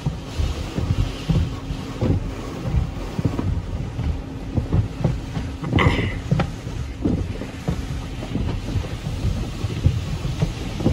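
Automatic tunnel car wash heard from inside the car: water spray and wash equipment drumming on the body in a low, uneven rumble with scattered thumps over a faint steady hum, and a brief sharper splash about six seconds in.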